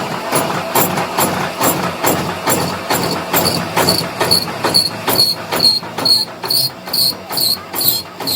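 Steady, evenly spaced hammer blows on steel, about two to three a second. From about three seconds in, each blow rings with a short high metallic note.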